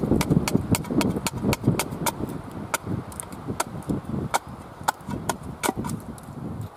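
The steel blade of a Cold Steel Special Forces shovel chopping at a thin upright stick of wood on a chopping block, in quick, light strokes about four a second.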